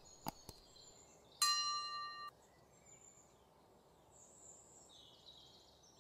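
Two quick clicks, then a bell-like ding that rings for about a second: the sound effects of a subscribe-button and notification-bell animation. Faint high chirps follow.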